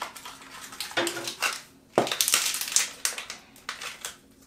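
Small black mystery-pin blind bag being crinkled and torn open by hand: irregular crackling, loudest about two seconds in and dying away near the end.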